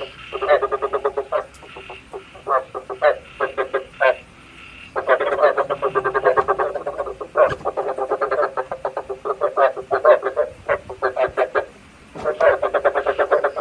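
Frogs calling: fast trains of short, rasping croaks in bouts, broken by brief pauses, the kind of call played to lure frogs into night traps.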